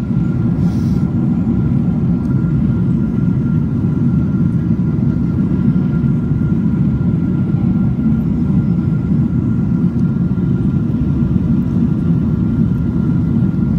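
Jet airliner cabin noise in flight: a steady, dense low engine and airflow noise, with a faint steady whine above it.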